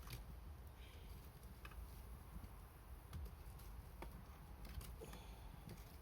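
Wood fire crackling faintly: scattered sharp pops and snaps, roughly one every half second to a second, over a low rumble.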